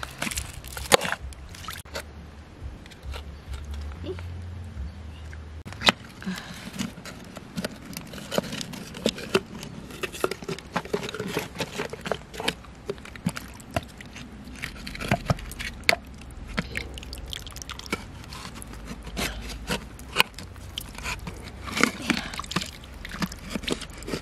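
Knife blade scraping and clicking against the shell of a large freshwater pearl mussel as it is pried open, a run of sharp irregular clicks and scrapes.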